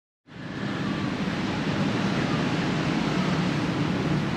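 Steady rushing background noise with a low hum, starting abruptly from silence a moment in.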